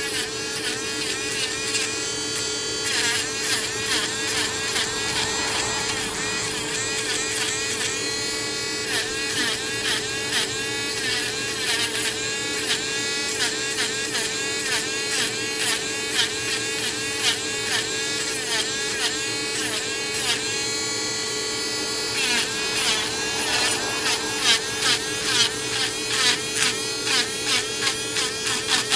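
Small handheld rotary tool running steadily while grinding old paint off a doll's hand. Its whine dips and recovers about twice a second as the bit is pressed into the work.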